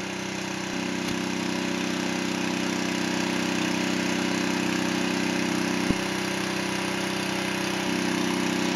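A small engine running steadily at a constant speed, with a single brief click about six seconds in.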